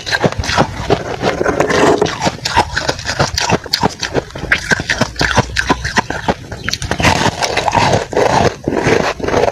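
Close-up crunching and chewing of a chunk of fluffy freezer frost, many crisp crackles in quick succession.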